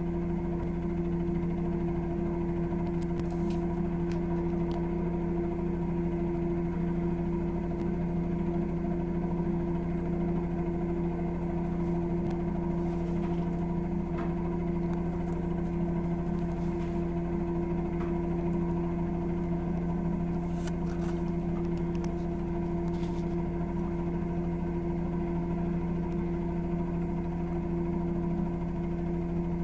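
Bell helicopter's engine and rotor running steadily: an even hum with two strong unchanging tones over a fast, regular low beat.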